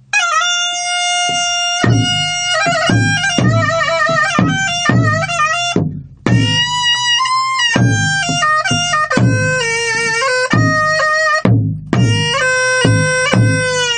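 Instrumental Korean folk tune: a reedy wind instrument plays an ornamented, bending melody, joined about two seconds in by regular drum strokes, with two short breaks in the playing.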